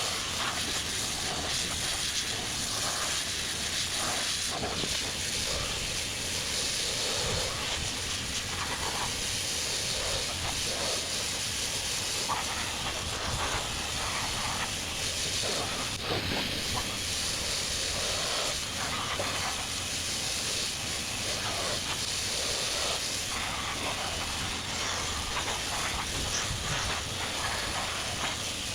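Sandblaster running: a steady hiss of compressed air and abrasive blasting a steel wheel rim.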